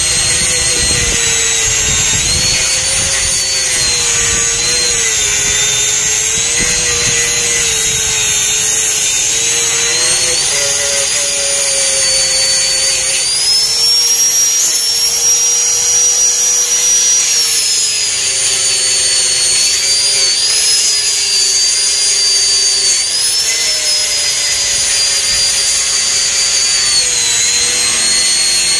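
Handheld angle grinder running steadily, its disc cutting along the edge of a cement-filled loster mould to free the cast block. Its whine sags in pitch as the disc is pressed in and rises again when it is eased off, highest for a few seconds around the middle.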